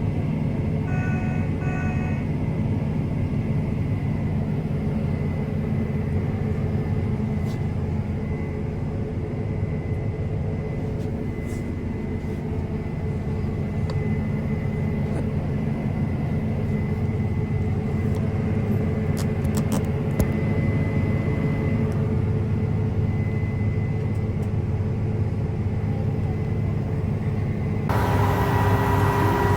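Diesel engine of large harvest machinery running steadily under load, with a thin steady whine above the drone, while grain is being transferred. A few short beeps sound about a second in. Near the end the sound changes abruptly to a louder drone with a different tone.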